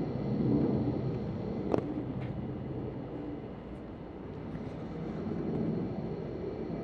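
Low, uneven background rumble, with a single sharp click a little under two seconds in and a fainter one shortly after.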